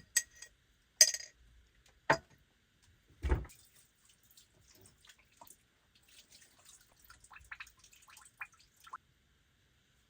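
Water dripping and trickling, with short plinking drops, after four sharp knocks in the first few seconds.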